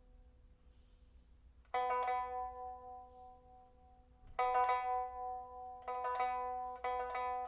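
A 1987 Shanghai-made pipa with white ox-horn fittings and a blood-sandalwood body, being played on trial after a repair that fitted a new soundboard and frets. A fading note opens the passage, then single plucked notes come about two seconds in and again near the middle. Each note rings out and dies away, and the notes come closer together toward the end.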